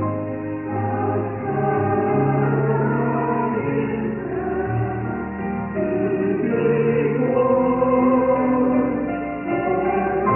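Choir singing in chorus, a slow passage of long held notes.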